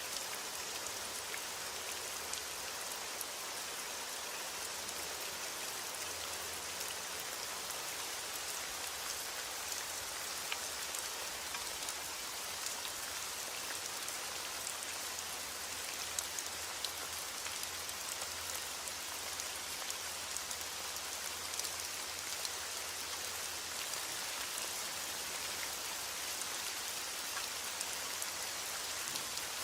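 Steady rain falling on a surface, an even hiss with many small scattered drop ticks.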